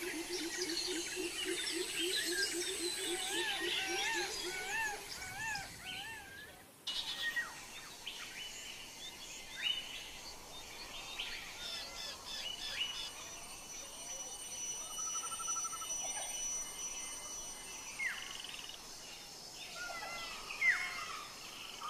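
Birds calling in forest: repeated warbling phrases in the first few seconds, then scattered sharp chirps and whistles after an abrupt change about seven seconds in.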